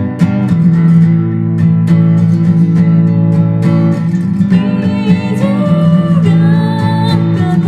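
Acoustic guitar strummed in steady chords, with a voice coming in and singing long held notes from about halfway through.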